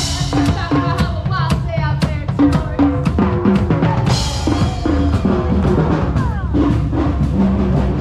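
Music with a steady drum-kit beat, bass drum and snare under pitched instruments.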